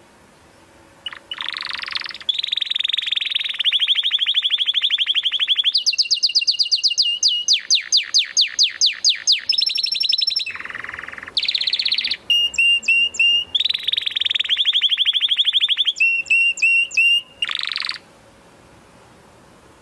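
Domestic canary singing one long song of fast trills and rolls. It changes every second or two between buzzy rolls, rapid repeated notes and clear whistled runs, starting about a second in and stopping near the end.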